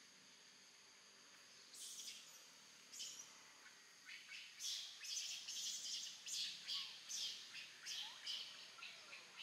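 A run of short, high-pitched chirping animal calls, starting about two seconds in and quickening to two or three a second in the second half.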